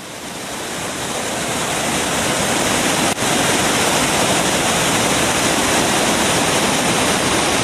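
Waterfall rushing through a rock gorge: a loud, steady wash of falling whitewater that fades in over the first couple of seconds, with a brief drop about three seconds in.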